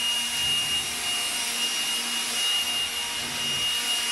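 Handheld cordless blower running steadily: a constant high motor whine over a rush of air.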